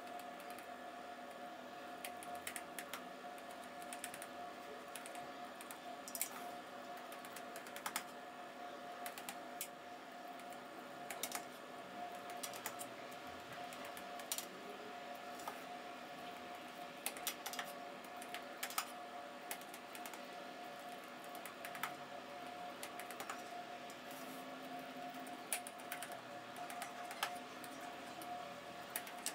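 A table knife clicking and tapping irregularly against a baking tray as it scores lines through soft dough, a few light ticks a second at most, over a steady faint hum.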